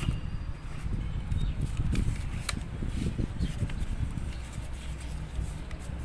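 Unpacking handling noise: paper and cardboard rustling as an instruction booklet is pulled from a box and leafed through, with scattered small clicks and taps, one sharper click about two and a half seconds in.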